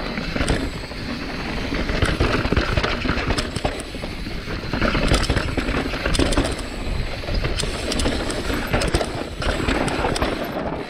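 Santa Cruz Bronson full-suspension mountain bike riding down a rough, rocky trail: tires grinding over rock and the bike's chain and frame rattling, with many sharp knocks throughout over a constant low rumble.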